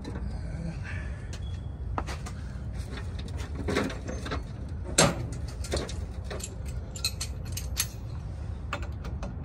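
Scattered metal clinks, clicks and knocks of tools and parts being handled at a car's bare wheel hub and wire-wheel adapter, with one louder knock about five seconds in.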